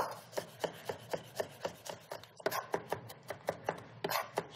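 Chef's knife chopping garlic on a wooden cutting board: a steady run of knocks, about four a second, as the blade mince-chops the cloves.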